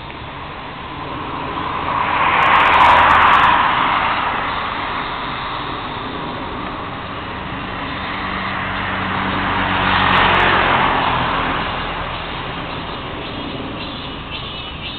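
Two road vehicles passing by, each a rush of sound that swells and fades over a few seconds: the first about two to four seconds in, the second around ten seconds in, with a low engine hum.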